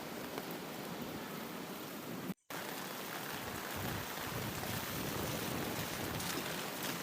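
Steady rain, an even rushing hiss of water. It cuts out completely for a split second about two and a half seconds in.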